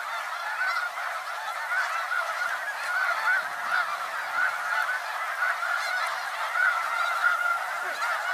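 A large flock of snow geese feeding on dry corn stubble: a constant din of many overlapping calls, over a static-like crackle of their bills pecking food off the stubble.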